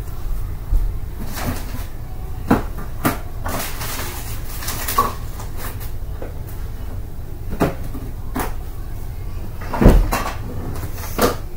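Scattered knocks and clunks, about ten spread irregularly, the loudest about ten seconds in, over a steady low rumble.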